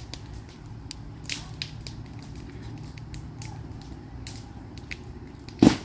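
Scattered light knocks and clatter of roof teardown work, then near the end a single loud thud as a sheet of plywood thrown off the mobile home's roof hits the ground.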